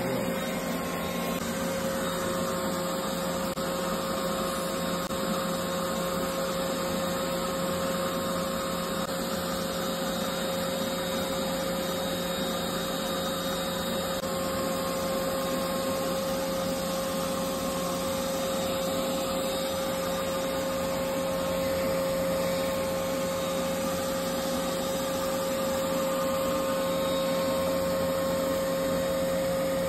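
Vacuum cleaner running steadily with a constant whine as its nozzle sucks lint off a commercial dryer's lint screen.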